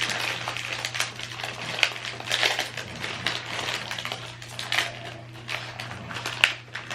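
Plastic snack wrapper crinkling and crackling in irregular bursts as it is handled and opened.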